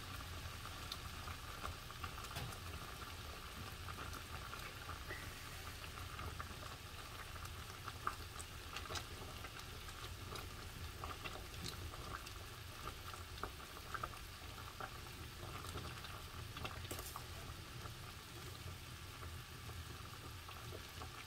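Pot of young burdock stems boiling in water on the stove: faint, irregular bubbling with small scattered pops over a steady low hum.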